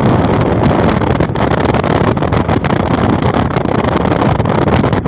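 A car driving at speed along a highway, with wind buffeting the microphone at the open side window over steady road and engine noise.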